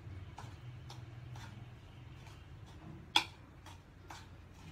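A spoon clicking and scraping against a bowl while stirring mustard oil into dry ground spice powder: light taps every half second or so, with one sharper click a little past three seconds in.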